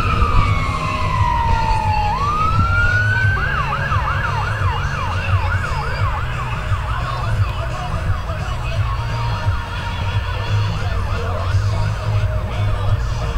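Emergency vehicle siren: a long wail that falls for about two seconds and sweeps back up, then switches to a fast yelp of about two or three sweeps a second that grows fainter near the end, over a steady low rumble.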